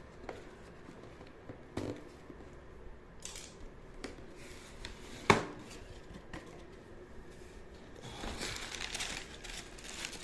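A cardboard box's packing tape being slit open, with a few light clicks and a sharp knock about five seconds in. Then crumpled kraft packing paper rustling and crinkling as it is lifted out of the box, in the last two seconds.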